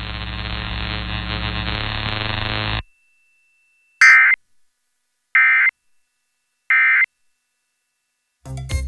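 A steady drone of held tones that cuts off about three seconds in, then, after a second of silence, three short identical bursts of Emergency Alert System SAME data tones, about 1.3 s apart: the end-of-message signal that closes the alert.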